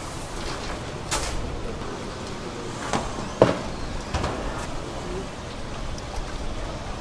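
Restaurant kitchen ambience: a steady low hum with scattered knocks and clatters, the loudest a sharp knock about three and a half seconds in, and faint voices in the background.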